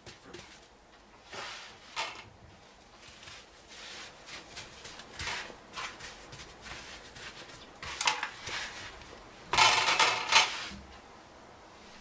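Wet coarse rock salt crunching and scraping as hands press and pack it in handfuls over a whole chicken on a metal baking tray. It comes in several separate scratchy bursts, the loudest and longest near the end.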